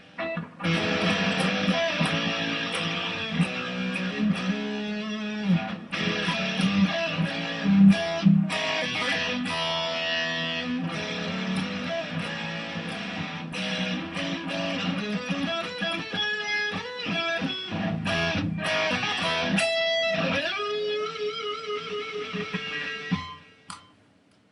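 Custom-built Ibanez Fireman-style electric guitar with DiMarzio pickups being played: a continuous passage of picked notes, ending on a long held note of about three seconds that cuts off about a second before the end.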